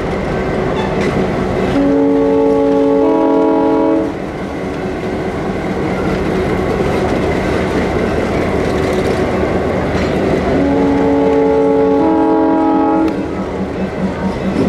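Diesel locomotive's chime air horn sounding two long blasts, each a little over two seconds and about nine seconds apart, with the chime's notes coming in one after another at the start of each blast. Under it, the steady running of a slow-moving diesel passenger train.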